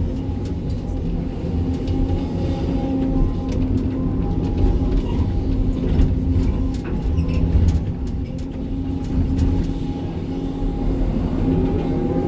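Sany 305 excavator's diesel engine running steadily under work, with a thin steady whine above it and scattered sharp knocks and scrapes of stony spoil against the steel bucket.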